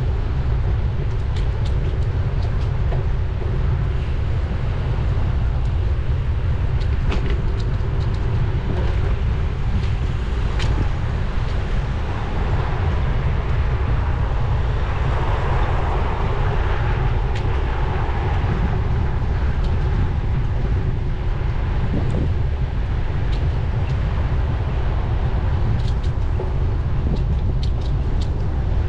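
Steady low wind rumble on the microphone of a camera riding on a moving road bike, over tyre and road noise and city traffic. The traffic noise grows louder for several seconds around the middle as vehicles pass, and there are a few short clicks and rattles.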